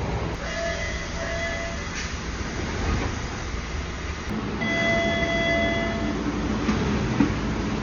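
MBTA Orange Line subway car door chime sounding twice over the steady rumble of the train and station: a short two-step tone about half a second in, then a longer, brighter held tone around five seconds in.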